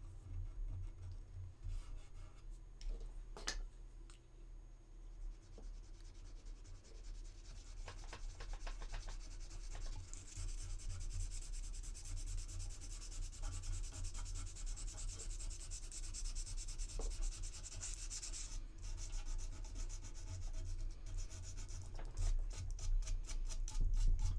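Light rubbing and scraping on a resin model kit's seam as filler is worked in and smoothed, with quick fine strokes that grow denser and louder about ten seconds in.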